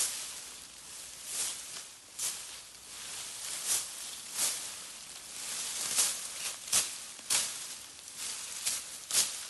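A hand digging tool chopping into loose forest soil and flinging dirt and leaves, a sharp scrape-and-spray about once a second, some strokes louder than others.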